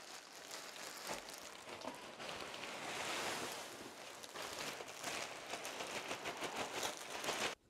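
Bean-bag filling beads, small polystyrene balls, rattling and pouring from a plastic sack into a cardboard box, with the plastic crinkling, making a rain-like hiss. It swells in the middle and cuts off suddenly near the end.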